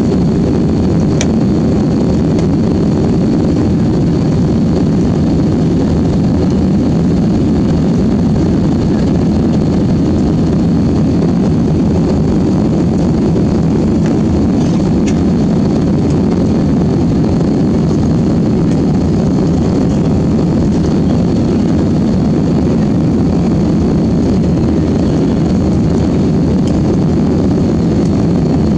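Steady cabin noise of a jet airliner in flight: engine and airflow rumble heard from inside the cabin, with a faint steady high whine above it.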